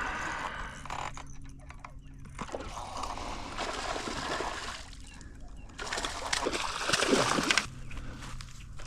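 Pond water splashing and sloshing in several surges, loudest near the end.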